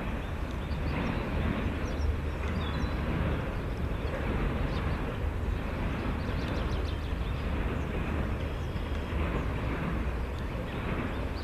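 CSX autorack freight train rolling past the crossing: a steady low rumble.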